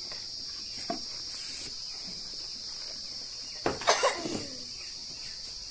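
Steady high-pitched chirring of insects, with a short, loud burst of sound about four seconds in.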